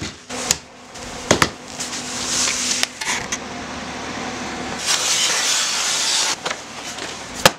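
A large sheet of brown kraft paper rustling and crinkling as it is rolled out and spread over a workbench by hand, with a few sharp knocks and taps. The rustle swells twice, about two seconds in and again around five seconds in.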